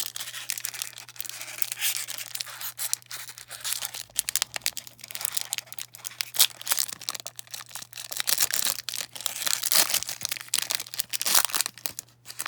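Wrapper of a 1993 Fleer Ultra baseball card pack being torn open and crinkled by hand: a continuous run of rustling and crackling with sharper rips, over a steady low electrical hum.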